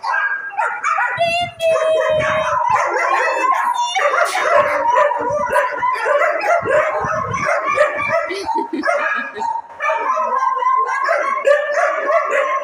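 Many kennelled shelter dogs barking at once in a continuous, overlapping din, with a few long high-pitched calls in the first couple of seconds.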